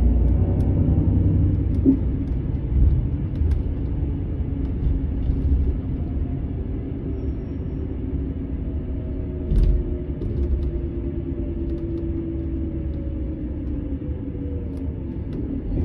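Setra S 431 DT double-decker coach driving, its deep engine rumble carrying a whine that falls slowly in pitch over the second half. A few short knocks and rattles break through, the loudest about nine and a half seconds in.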